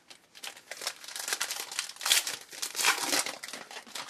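A pack of trading cards being torn open, its wrapper crinkling and tearing in a run of sharp crackles that are loudest in the middle.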